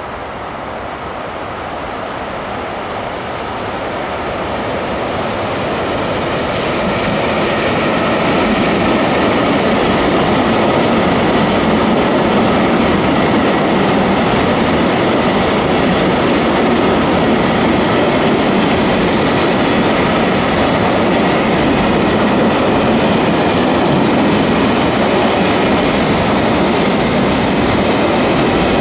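Freight train of tank wagons hauled by an electric locomotive approaching and passing close by, its wheel-on-rail noise growing louder over the first several seconds and then holding steady as the wagons roll past.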